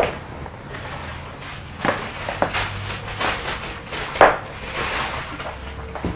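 Scattered light knocks and rustling, with a sharper knock about four seconds in.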